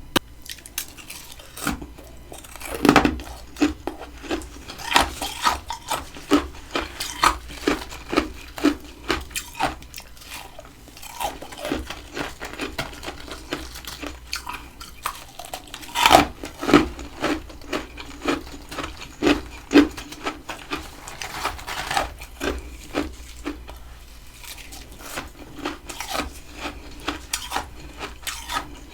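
Humidifier-built freezer frost from a mini freezer crunching and clicking as it is broken off or bitten, in irregular sharp hits with a few louder cracks.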